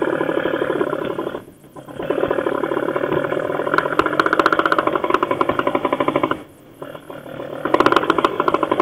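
Motorcycle engine running with a fast, even pulsing beat. It drops away briefly twice and picks up again.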